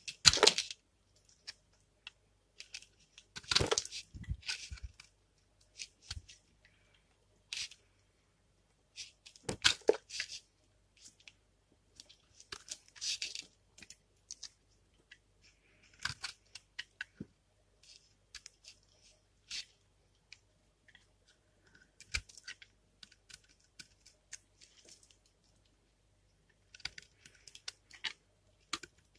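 A knife shaving thin curls off a bar of dry, hardened soap: short crisp scraping and crackling strokes at irregular intervals, with brief quiet gaps between them. The strokes are loudest about half a second, four seconds and ten seconds in.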